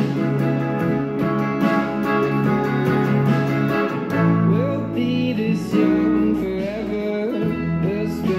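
Electric guitar played along with a song that has a singer, chords and picked notes under a vocal line that slides between notes from about halfway on.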